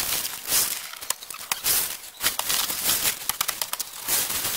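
Ice cubes pouring out of torn plastic bags and clattering into hard plastic bins, with the bags crinkling: a quick, uneven run of clicks and rustles.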